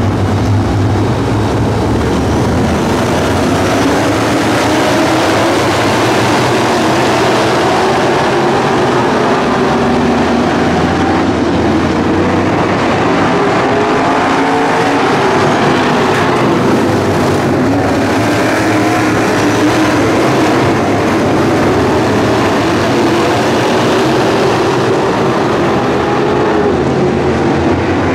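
Several dirt late model race cars' V8 engines running hard together on a dirt oval, the engine notes rising and falling as the cars race past.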